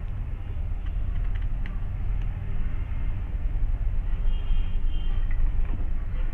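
Steady low rumble in the background, with a few faint short clicks as a knife slits small green brinjals.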